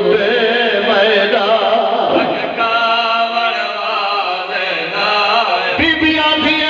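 Noha: a man's voice chanting a Shia mourning lament into a microphone, the melody rising and falling in long, drawn-out phrases, with a new phrase starting near the end.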